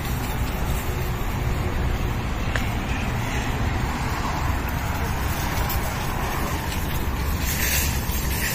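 Steady low rumble of road traffic and outdoor background noise, with a short hiss near the end.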